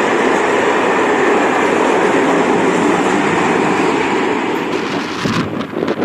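Freight train wagons rolling past at speed, a loud steady rumble and rattle of wheels on rail. About five seconds in it gives way to gusty wind buffeting the microphone.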